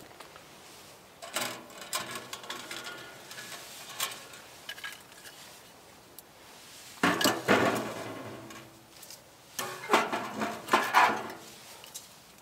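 Thin titanium wood-burning tent stove being handled: its door opened and split firewood set into the firebox, with metal clattering and clinking and wooden knocks. The sounds come in bursts about a second in, around seven seconds and again around ten to eleven seconds, the last two the loudest.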